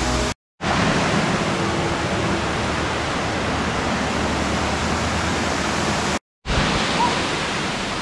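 Steady rushing of a mountain waterfall and stream cascading over rocks. The sound cuts out completely twice, briefly, about half a second in and again about six seconds in.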